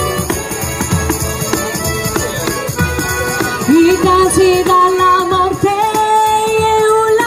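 Traditional Salentine folk music played live: a tamburello frame drum beating steadily with its jingles, an organetto button accordion and a violin. A strong long held note enters about halfway through.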